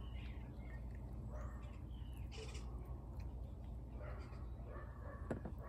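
Domestic cat vocalizing in several short, bending calls, spaced out over a few seconds, while it eats at a shared food saucer with a second cat close by.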